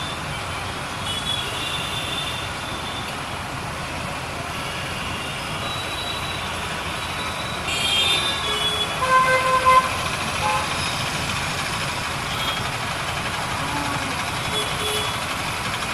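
Road traffic: a steady wash of vehicle noise with several short horn toots, the loudest about eight to ten seconds in.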